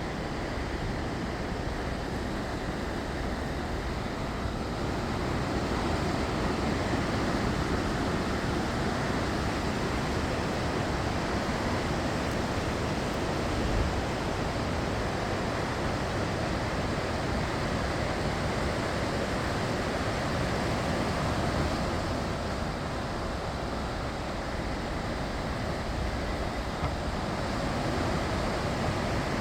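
Floodwater rushing steadily, a continuous even wash of noise that grows a little louder a few seconds in.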